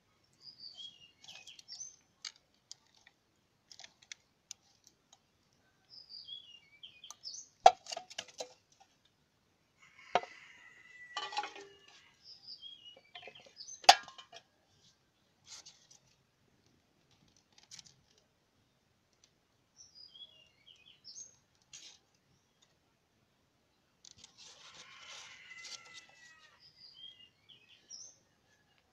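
Birds chirping, broken by two loud, sharp cracks about a quarter of the way in and again about halfway, with a smaller crack between them: shots from a homemade butane-powered bolt-action marble gun firing 8 mm steel balls. Some handling rustle follows the shots and comes again near the end.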